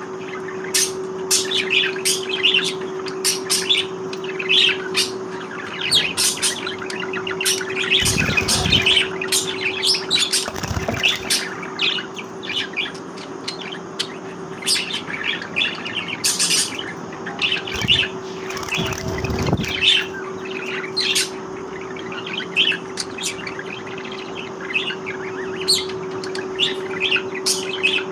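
Budgerigars chirping and chattering continuously in quick, high, overlapping calls over a steady low hum, with a few brief low thuds.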